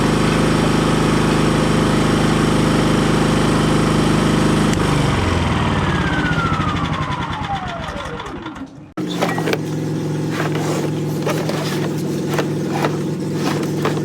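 Portable generator's small engine running steadily, then shut down, winding down over about four seconds with a long falling whine. After an abrupt cut, a steady engine hum returns with a series of sharp clicks and knocks.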